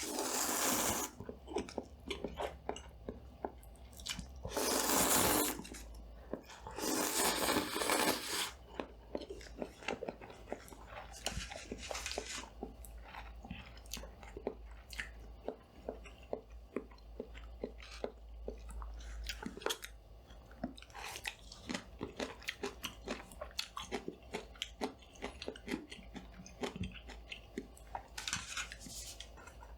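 Close-miked eating. Loud crunchy bites come near the start, around five seconds in and again about seven seconds in, then steady chewing with many quick wet mouth clicks. A steady low hum from a studio light runs underneath.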